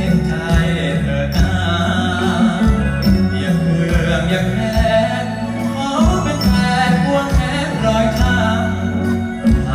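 Live band music with a steady drum beat and a male singer singing into a microphone over it.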